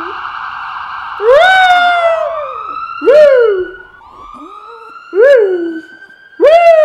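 Ambulance siren sound effect: a slow rising and falling wail, with four loud short whoops over it, each rising then falling in pitch, about two seconds apart.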